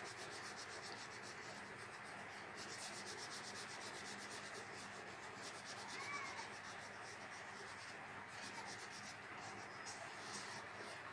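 Yellow crayon rubbed back and forth on drawing paper to fill in a shape with plain colour: a faint, steady scratchy rubbing in quick, even strokes.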